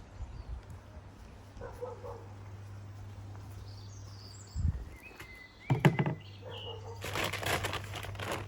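Bird-food bags being handled: two dull thumps around the middle, then crinkly rustling of a plastic bag over the last second or so. Faint bird chirps and a steady low hum sit underneath.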